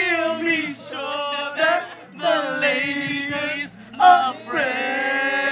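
Male vocal group singing a cappella in harmony: several voices hold and bend long notes in phrases, with short breaks about a second, two seconds and nearly four seconds in.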